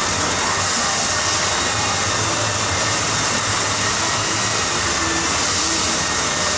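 Steady blowing whoosh of an electric air blower running continuously, with a low hum beneath.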